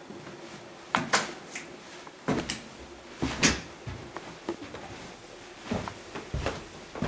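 Clicks of a door latch and handle about a second in, followed by dull, uneven footsteps going down carpeted stairs, roughly one a second.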